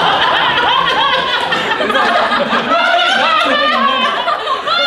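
A group of people laughing together, several voices overlapping.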